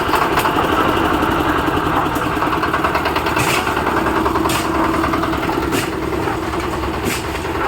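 Engine of a concrete mixer machine running steadily with a rapid chugging pulse, just started for road concreting. A few faint clicks sound over it.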